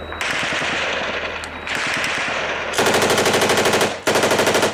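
Machine gun firing long bursts of automatic fire: a sustained rattle, then two rapid bursts of about a second each near the end, with a short break between them.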